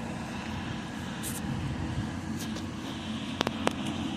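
Steady hum of distant road traffic, with two sharp clicks about three and a half seconds in.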